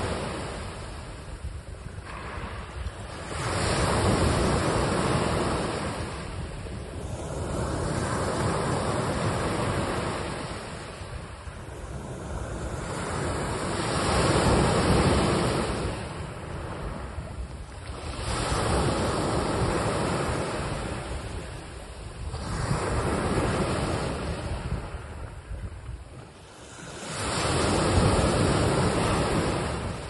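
Sea waves washing onto the shore, each wave swelling and fading in turn about every five seconds.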